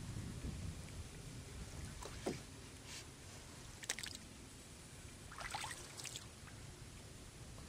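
Canoe being paddled on calm water: a few short, soft splashes and drips from the paddle, about two seconds apart, faint over a low steady background.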